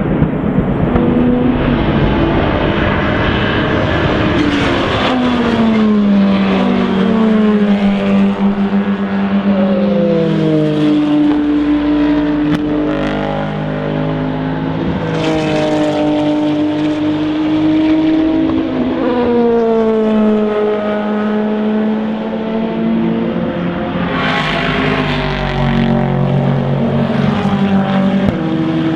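Endurance prototype and GT race car engines at high revs, several cars passing one after another, the engine pitch dropping and then climbing again, over and over.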